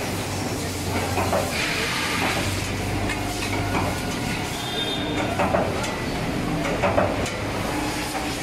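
Low steady hum of a CNC copper busbar punching and cutting machine, with several short metallic clinks and knocks as cut copper busbar pieces are handled on a wooden pallet.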